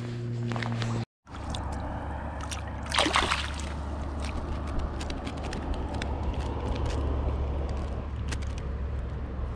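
Water sloshing and splashing as a freshly caught rainbow trout moves in a rubber-mesh landing net held in the water, with one louder splash about three seconds in, over a steady low rumble.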